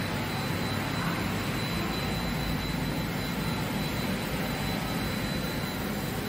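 Steady rushing noise of workshop machinery and moving air, even throughout, with a thin steady high whine above it.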